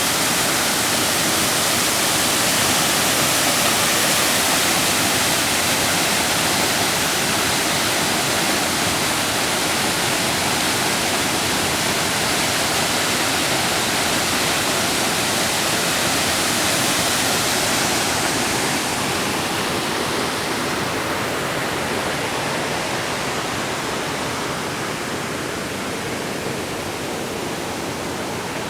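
Sol Duc Falls: a waterfall's steady, loud rush of falling water. The hissing top of the sound softens about two-thirds of the way through.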